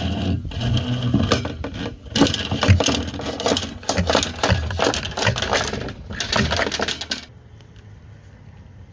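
Rapid, dense mechanical clattering and rattling, many quick clicks and knocks, stopping about seven seconds in and leaving a faint steady hum.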